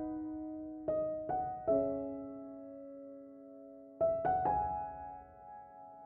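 Soft background piano music: chords struck a few at a time and left to ring and fade, with a pause of about two seconds between groups.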